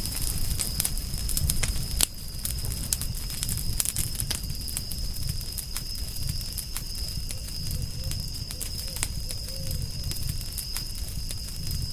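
Wood fire crackling with frequent irregular pops and a louder snap about two seconds in, over a low rumble of burning, with a thin steady high tone behind it.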